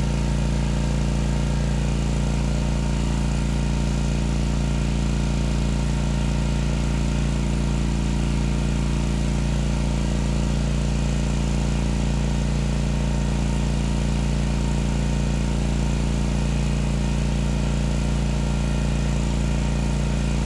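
WEN GN400i inverter generator's engine running steadily at constant pitch under a heavy load of about 2750 watts.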